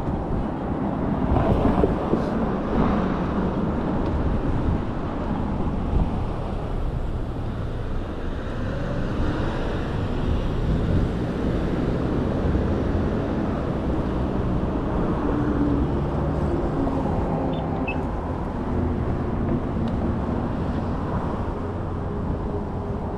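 Steady outdoor road noise with a low wind-like rumble, and faint steady humming tones in the second half.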